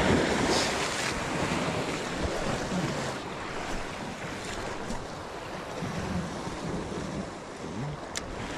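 Sea waves breaking and washing over a rocky shoreline, with a surge right at the start, and wind blowing on the microphone.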